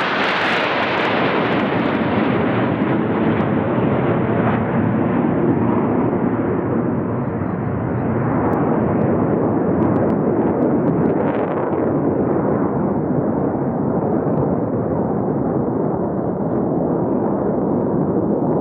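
Jet aircraft engine noise of a formation flying past: a loud, steady, rushing rumble, with a higher hiss at the start that fades over the first couple of seconds.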